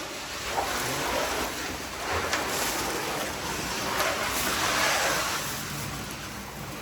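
Crushed ice pouring into a fishing boat's hold makes a steady rushing hiss that swells and fades, with a few faint sharp ticks.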